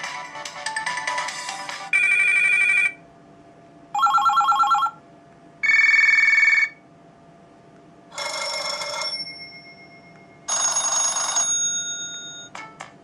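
ZTE Open (Firefox OS) ringtones previewed one after another through the phone's speaker. A short stepping melody is followed by a string of separate beeps and chimes about a second each, some ringing out as they fade. Near the end a fast ticking pattern starts, about four ticks a second.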